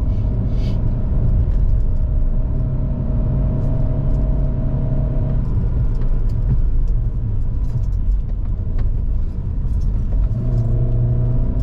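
GAC GS3's 1.5-litre naturally aspirated petrol engine pulling the car uphill, heard from inside the cabin over steady road rumble. The engine's drone fades about five seconds in and comes back about ten seconds in.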